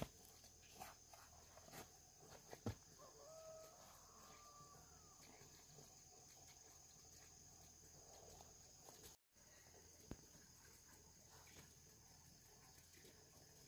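A chicken calls once, faintly, about three seconds in, against a very quiet background with a few light clicks early on.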